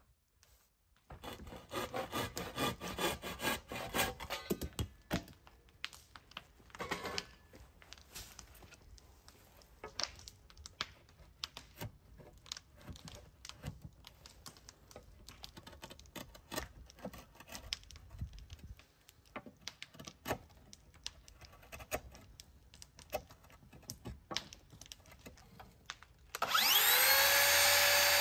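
Hand chisel paring and scraping the wooden window sill: a few seconds of quick rasping strokes, then scattered light cuts and clicks. Near the end a miter saw's motor spins up with a rising whine and runs at full speed.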